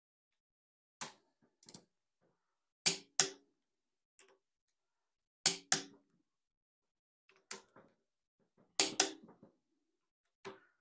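Click-type torque wrench breaking at its set torque, about 75 ft-lb, on the cylinder-head bolts of a Ford 200 cu in inline six. Sharp clicks come mostly in close pairs every two to three seconds, with fainter single clicks between.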